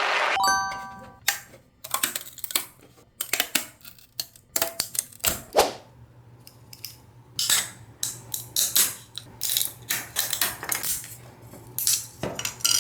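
3D-printed plastic spring dog toy clicking and clattering as it is handled, in irregular light knocks, some in quick runs and some single.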